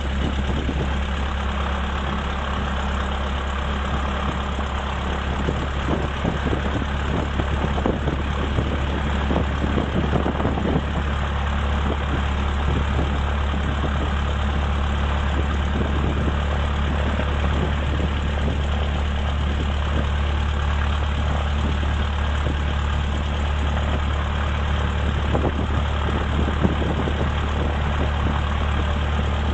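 Cessna 152's four-cylinder Lycoming engine and propeller running steadily at low throttle just after start, heard from inside the cabin.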